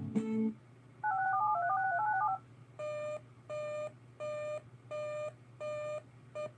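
A rapid string of telephone-style touch tones (DTMF) lasting about a second and a half, followed by five evenly spaced half-second beeps and a short sixth beep. These are broadcast alert tones heralding an Emergency Alert System warning.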